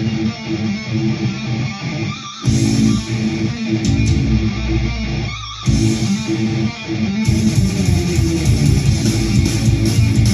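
Rock music with electric guitar and bass playing through a pair of SOUNDBOKS Go Bluetooth speakers linked in wireless stereo. It briefly drops out about two and five seconds in, and turns fuller and brighter about seven seconds in.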